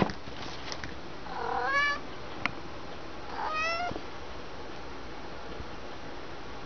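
Black domestic cat meowing twice, each meow rising in pitch, with a single sharp click between them.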